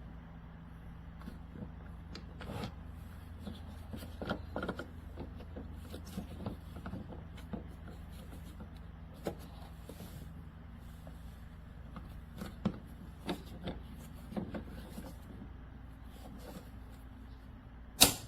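Greenworks 40V brushless cordless lawn mower's motor running with a steady low hum, with scattered clicks and knocks, and one loud sharp click near the end.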